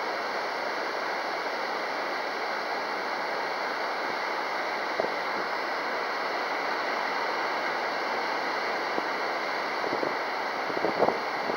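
Steady wind rushing over the microphone, with a few light knocks near the end.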